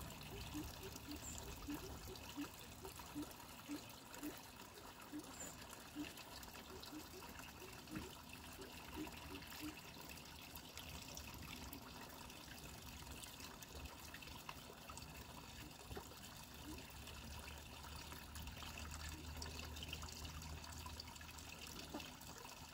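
Water trickling and splashing steadily into a small pond from a rock fall. Over the first ten seconds a run of soft, short low plinks comes about twice a second.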